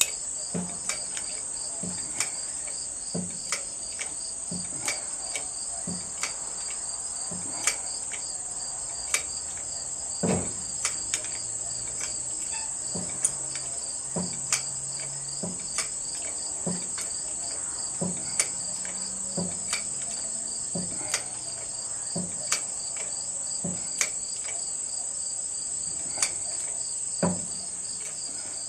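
Crickets chirping steadily, with a sharp click or knock about every second over them.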